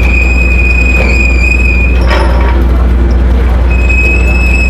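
Ferry bow ramp door being winched up, its mechanism giving a steady high squeal that breaks off about two seconds in and starts again near the end. A short scraping noise falls in the break, all over a loud, steady low drone of machinery.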